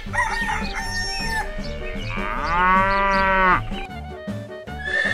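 Farm-animal sound effects over a music track with a steady low beat: shorter fowl-like calls in the first second or so, then a cow mooing once, long and loud, about two seconds in.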